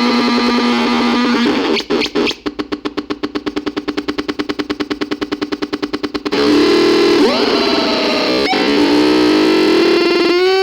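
Synthesizer tones: a held note, then from about two seconds in a rapid stutter of roughly ten pulses a second lasting about four seconds, then a steady note again with a few short pitch swoops.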